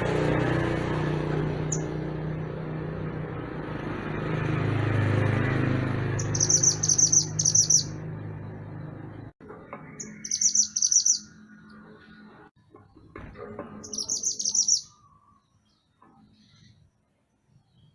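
A mantenan gunung songbird giving three bursts of rapid, high-pitched chirping, each about a second long, roughly six, ten and fourteen seconds in. A low steady background rumble sits under the first part and cuts off abruptly about nine seconds in.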